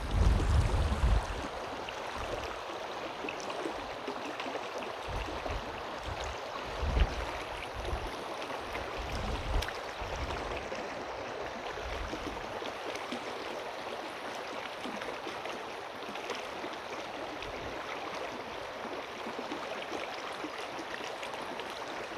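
Floodwater rushing steadily through a small channel and storm drain after heavy rain, a continuous even rush. A few brief low rumbles sound at the start and again about a third of the way in.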